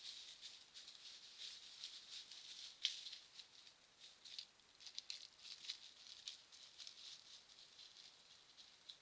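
Irregular crackling and rustling of dry leaves or brush, many small clicks with a sharper snap about three seconds in, as from an animal moving close to a trail camera.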